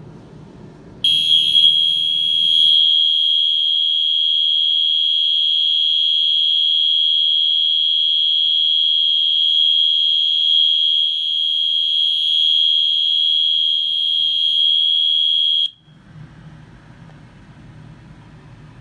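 Wheelock MIZ-24S-R mini horn sounding loud and high-pitched in continuous mode, one unbroken steady tone. It starts about a second in and cuts off suddenly about fifteen seconds later when its power is disconnected.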